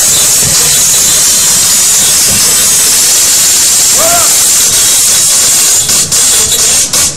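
Loud, steady hiss with a brief rising-and-falling tone about four seconds in, and a few short dropouts near the end.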